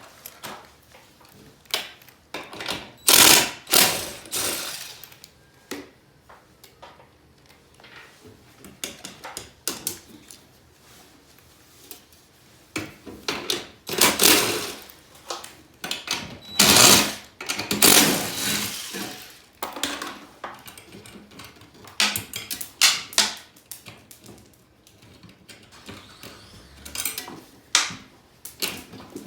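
Power tool loosening the mounting bolts of a garage door opener, in irregular bursts of one to two seconds of mechanical clatter with pauses between.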